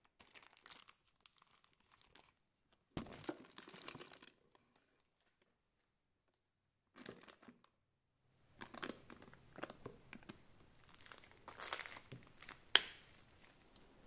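Plastic piping bag crinkling and rustling in several short bursts as it is fitted with a metal tip and filled with whipped cream scooped from a plastic tub. A single sharp tap near the end is the loudest sound.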